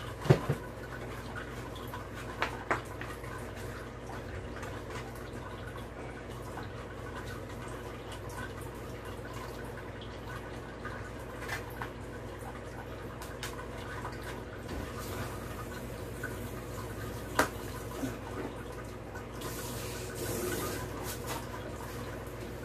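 Steady low background hum with scattered light clicks and knocks from a bicycle wheel and tyre being handled during tyre fitting; one sharper click about two-thirds of the way through and a brief soft hiss near the end.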